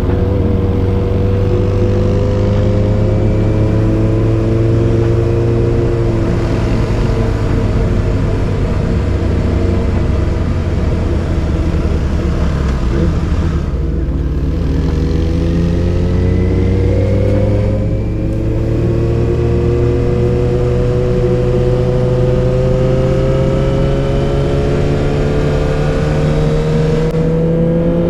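Yamaha XJ6's inline-four engine through a Dominator GP full exhaust system with dB killer, pulling on the move with its note climbing slowly. Twice, about halfway through and again a few seconds later, the pitch breaks and drops as the bike shifts up, then climbs again.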